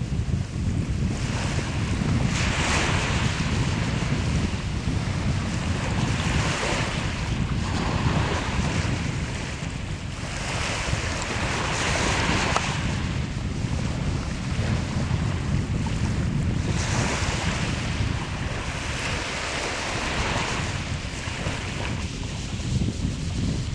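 Small waves breaking and washing up the beach, one hissing wash every few seconds. A steady low rumble of wind on the microphone sits under it.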